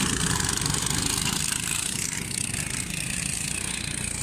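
Cyclekart's small single-cylinder engine running as the kart drives away, fading gradually.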